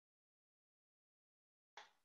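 Near silence: the call audio is dead quiet, with a faint hiss of background noise coming in near the end.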